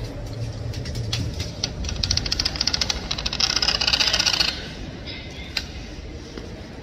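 Low rumble of a train moving in an underground station, with a rapid clatter and hiss for about three seconds in the middle that then drops away.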